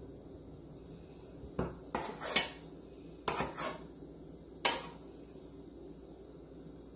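Metal spoon clinking and scraping against a cooking pot and a glass baking dish as a thick cream is scooped and spooned out. There are a handful of short clinks and scrapes in three or four groups, over a stretch from about a second and a half in to about five seconds in.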